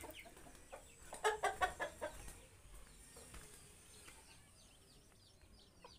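A chicken clucking, a quick run of short calls about a second in, followed by faint high chirps.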